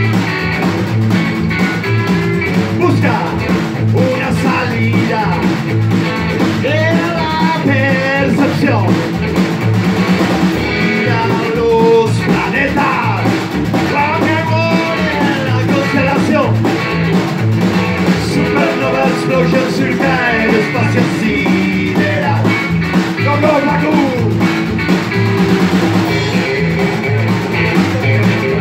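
Live rock and roll band playing loud: hollow-body electric guitar, upright double bass and a stand-up drum kit (snare, floor tom, cymbal) over a steady driving beat, with a voice shouting or singing at times.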